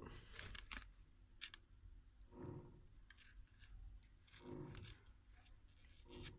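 Faint scattered clicks and short scrapes of a tool prying at a phone's glued back panel, separating it from its adhesive, with a few soft handling thuds.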